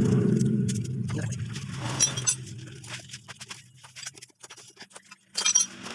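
Small metal clinks of tools and bolts being handled while bolts are fitted to a motorcycle engine. A steady low hum underneath stops about four seconds in.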